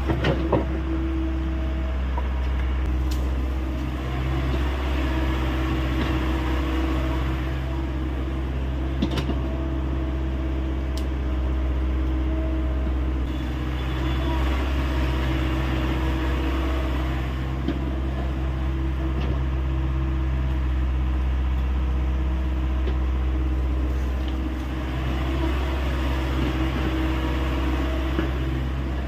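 Hyundai 85A excavator's diesel engine running steadily, its drone swelling and easing slightly every few seconds, with a few brief sharp clicks.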